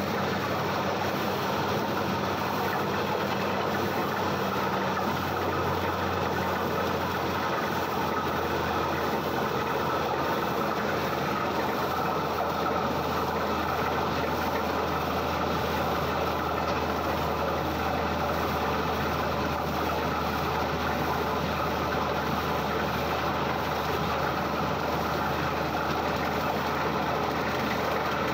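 Borewell drilling rig running steadily at the bore head, a continuous dense machinery noise with a low hum underneath.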